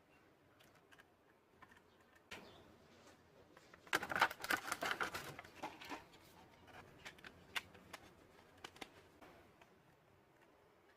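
Small clicks, taps and scrapes from hands handling laptop hardware, with a brief flurry of rattling and scraping about four seconds in.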